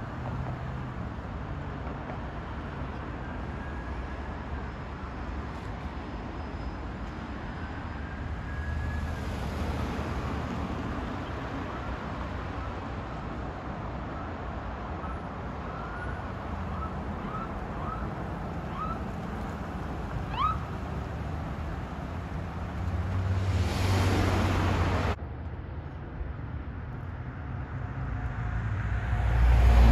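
Road traffic with an emergency vehicle's siren faint in the distance, first wailing in slow rises and falls, then switching to short rising yelps that come faster and faster. A vehicle passes close about 23 seconds in, and near the end a heavy vehicle approaches, growing louder.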